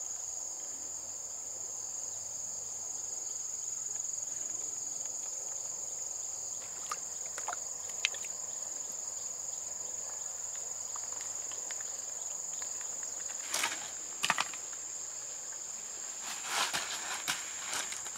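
Insects chirring in a steady, continuous high-pitched buzz, with a few sharp clicks or knocks in the last few seconds.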